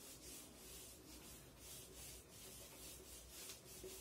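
Handheld whiteboard eraser wiping back and forth across a whiteboard: a faint, rhythmic hiss of rubbing strokes, about three a second.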